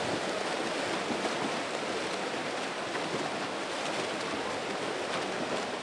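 Water polo players swimming and splashing, a steady churn of water.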